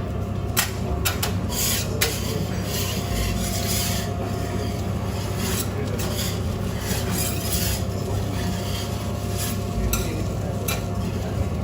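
Metal utensil scraping and rubbing on a hot griddle at a cooking station, with irregular strokes and a few sharp clicks in the first few seconds and light sizzling. A steady low hum runs underneath.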